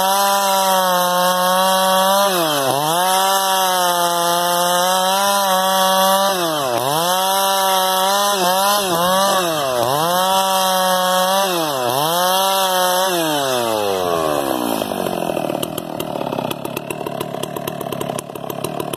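Two-stroke chainsaw at full throttle ripping lengthwise through a large log. Its engine pitch dips sharply every few seconds as the chain bites into the wood, then recovers. About 13 seconds in, the throttle is let off and the engine pitch falls away and the sound drops.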